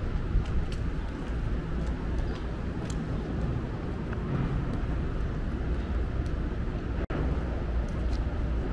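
Steady low rumble of city background noise, with a few faint clicks and a brief cut-out about seven seconds in.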